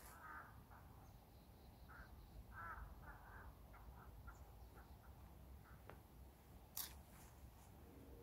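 Near silence: faint outdoor ambience with a few faint, short distant calls in the first three seconds and a single faint click about seven seconds in.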